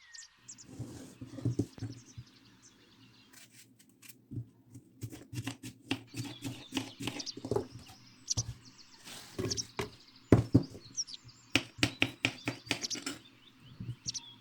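Irregular clicks and knocks over a low steady hum, with faint bird chirps near the start.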